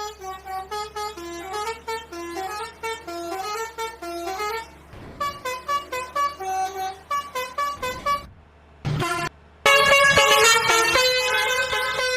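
Bus 'telolet' Basuri musical horn playing a tune of quick short notes stepping up and down, breaking off briefly about two-thirds through, then sounding louder in long held chords.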